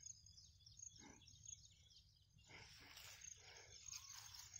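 Near silence: faint outdoor ambience with a thin, steady high insect trill, like crickets, and a few faint chirps.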